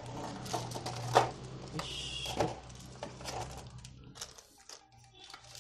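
Clear plastic bag of spare keycaps crinkling as it is handled, with scattered small clicks and taps, the sharpest about a second in.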